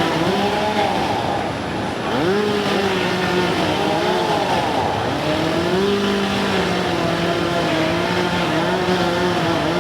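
An engine running with its speed repeatedly rising and falling, then holding fairly steady, over a constant noisy background.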